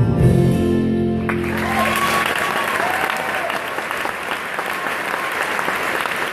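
A live band with acoustic guitar and bass ends a song on a held chord. About a second in, the audience breaks into applause with some cheering, and the applause continues steadily.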